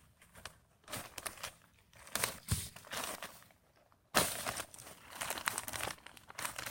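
Hands digging through soil and pulling dry, withered potato plants, in irregular bursts of rustling and scraping, with a sharper, louder burst about four seconds in.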